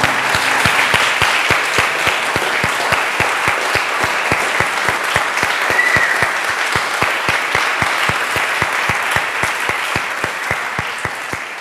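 An audience applauding as a children's choir song ends. One clapper close to the microphone stands out with a steady beat of about four claps a second above the dense clapping of the crowd.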